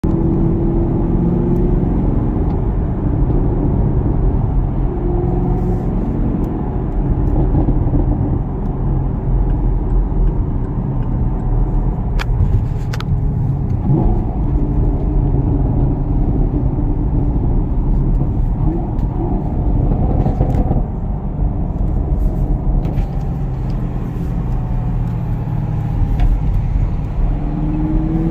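Camaro SS 1LE's 6.2-litre V8 through its stock NPP dual-mode exhaust, revving up and falling away in a deep, continuous rumble. A few sharp crackles and pops come on deceleration, bunched around the middle.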